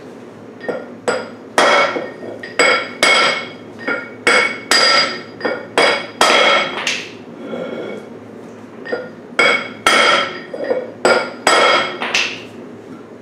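Hammer blows on a steel part, each leaving a short metallic ring. They come in two runs of about two blows a second, with a short pause about seven seconds in.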